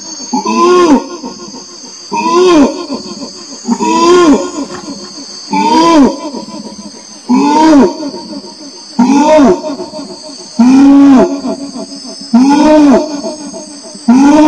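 Orangutan calling over and over: a deep, loud call, each one rising and then falling in pitch, repeated roughly every second and a half to two seconds, with a steady high hum beneath.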